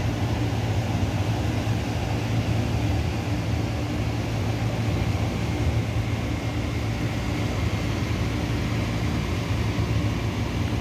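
Steady low mechanical hum, even and unchanging throughout, with a faint steady tone above it.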